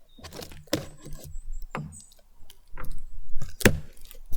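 Cardboard box being opened and its contents handled: irregular knocks, scrapes and rustles, with the loudest knock near the end.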